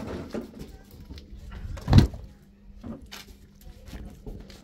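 A heavy thump about two seconds in, with scattered light knocks and rustling around it and a faint steady hum underneath.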